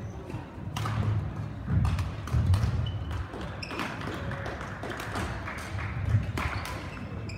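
Badminton rally: several sharp racket strikes on the shuttlecock, with players' feet thudding and shoes squeaking on the court floor.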